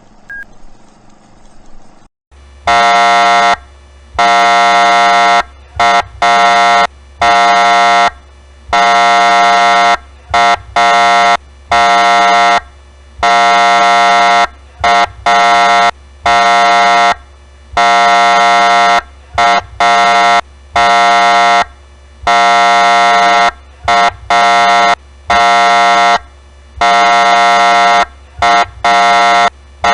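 Federal Signal police siren sounding its horn tone: a loud, steady electronic horn blast of one unchanging pitch, keyed on and off in repeated bursts of uneven length, from quick taps to blasts of a second or two. It starts about two seconds in, after a faint hiss.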